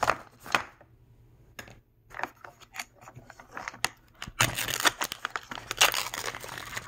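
A plastic Mini Brands capsule ball being handled and opened, with scattered clicks and taps of hard plastic. Past the middle come denser crinkling and tearing of the small plastic wrappers inside.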